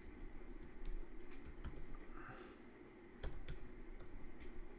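Typing on a computer keyboard: irregular, fairly faint key clicks as short terminal commands are typed, with a couple of sharper keystrokes a little over three seconds in.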